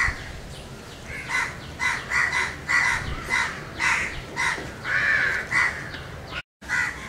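Crows cawing in a rapid series of short calls, two or three a second, starting about a second in. The sound drops out briefly near the end.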